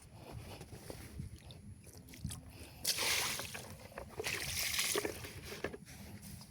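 Weed sprayer spraying in two short bursts of hiss, about three and four and a half seconds in, over faint rustling and small clicks.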